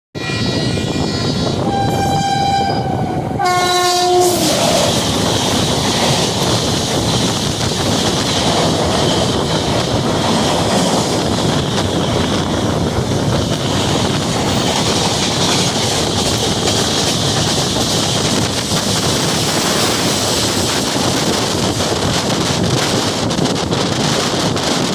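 Indian Railways WAP-7 electric locomotive sounding its multi-tone horn in a few notes of different pitch over the first four seconds, the last one lower and short. Then the express train runs past at speed, its wheels and coaches making a steady loud rumble on the rails.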